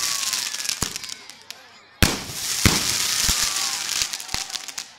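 Fireworks going off overhead. There is a sharp bang about two seconds in, then a long hiss of falling sparks that fades away, with a few scattered sharp cracks.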